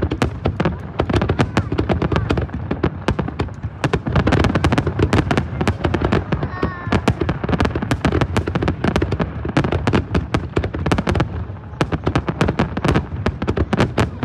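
Aerial fireworks display in a dense barrage: many shell bursts a second with crackling, without a break.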